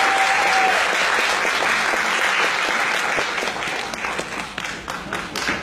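Theatre audience applauding, dense at first and thinning toward the end into scattered separate claps. A steady whistle-like tone cuts off under a second in.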